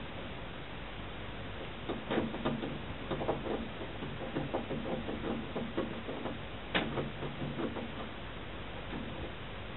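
Irregular bursts of quick tapping and scratching clicks from within a kitchen ceiling, of unknown cause, with one sharper click about seven seconds in, over a steady hiss.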